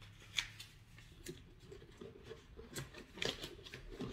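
A scrap of paper being pushed into an empty bottle: faint, scattered crinkles and light clicks of paper against the bottle.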